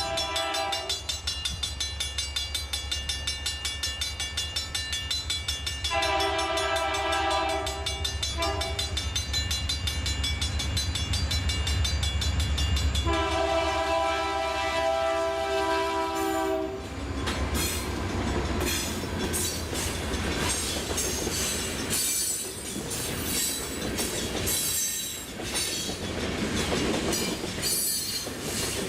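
Locomotive air horn sounding a multi-note chord in the grade-crossing pattern: a long blast ending about a second in, a long one about six seconds in, a short one, then a final long blast at about thirteen seconds, over the low drone of the diesel locomotives. After about seventeen seconds the drone gives way to the freight cars rolling past with a rhythmic clickety-clack of wheels over rail joints.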